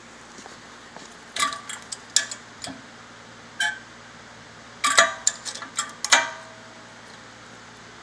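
Metal door and latch of a microwave fixation applicator's sample cavity being opened and then shut: a cluster of sharp metallic clicks and clanks, then a second cluster a few seconds later, the last clank ringing briefly.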